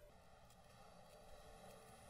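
Near silence: the faint scratch of a pencil marking out lines on a wooden board, with a soft click at the start.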